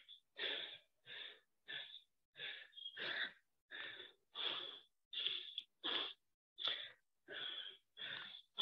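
A man breathing hard and rhythmically from exertion, short breaths at about one and a half a second, with silence between each breath.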